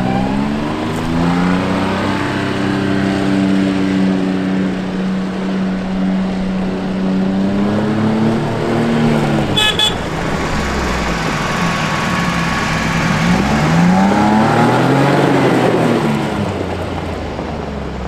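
John Deere Gator XUV 835M utility vehicle's three-cylinder gasoline engine running under way: it picks up speed and holds a steady drone, eases off, then speeds up and slows again. A short high beep sounds about halfway through.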